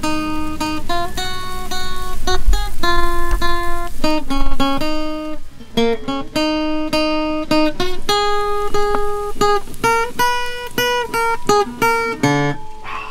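Acoustic guitar played fingerstyle: a melody of plucked single notes with some chords.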